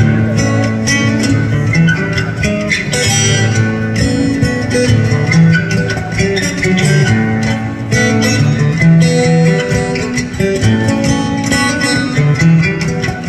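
Acoustic guitar played solo, an unbroken run of picked notes and strums with no singing.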